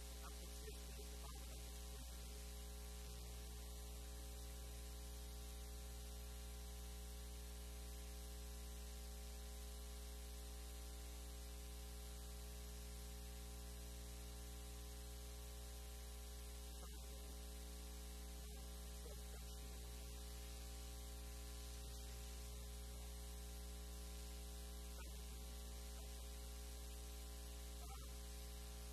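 Steady electrical mains hum with its overtones, over a constant hiss.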